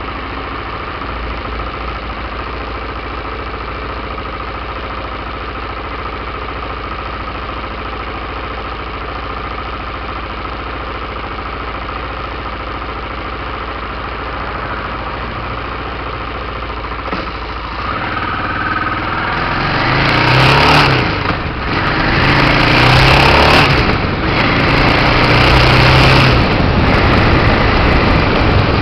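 Aprilia Pegaso 650 Cube motorcycle's single-cylinder engine idling steadily, then revving up about eighteen seconds in as the bike pulls away and accelerates, with two brief dips where it shifts gear and wind rushing over the camera as speed builds.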